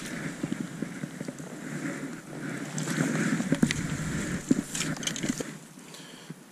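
Rustling and scattered light knocks of handling: a landing net with a pike in it lifted from the water and carried through bankside ivy and brush. The noise dies away near the end.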